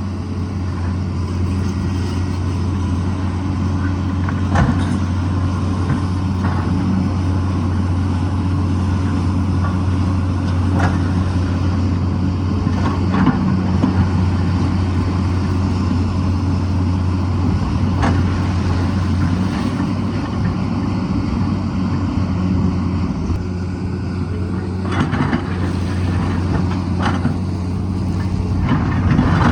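Tata Hitachi excavator's diesel engine running steadily under load, with a few sharp knocks and clanks scattered through.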